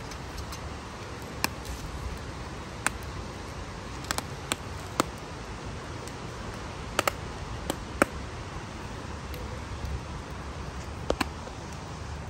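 Corn cobs roasting over charcoal embers, giving off sharp single pops and crackles at irregular intervals over a steady low hiss.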